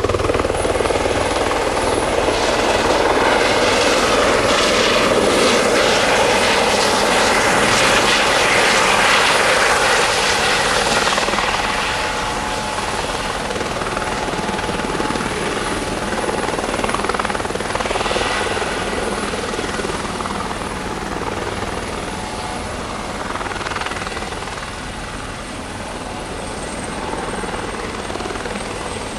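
Eurocopter EC130B4 helicopter hovering low: rotor noise with the turbine's thin, steady high whine. It is loudest for about the first ten seconds, then eases off somewhat.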